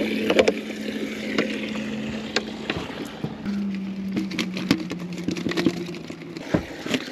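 Steady hum of a small electric motor on the boat, dropping slightly in pitch about halfway and stopping near the end. Over it come scattered clicks and knocks of a dip net being worked in and out of the live well to scoop white bait.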